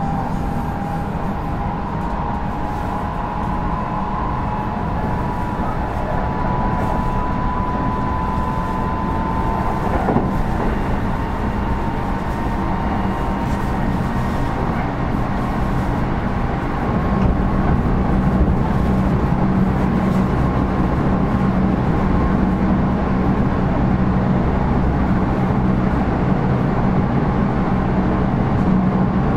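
Kintetsu 5200 series electric train heard from inside the car while running along the line: a steady rumble of wheels on rail. A faint whine rises slowly in pitch over the first ten seconds, a single knock comes about ten seconds in, and a deeper hum grows louder from about seventeen seconds.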